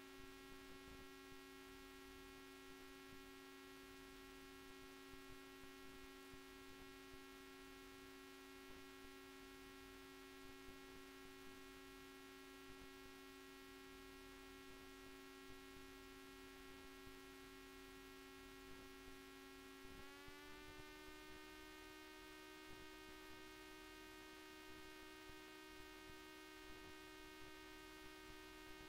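Near silence with a faint, steady hum whose pitch rises slightly about twenty seconds in.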